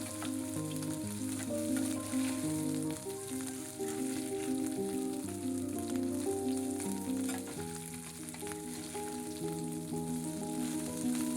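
Dried anchovies sizzling as they fry in plenty of hot oil in a pan, a steady hiss with scattered crackles. Background music of held notes plays under it.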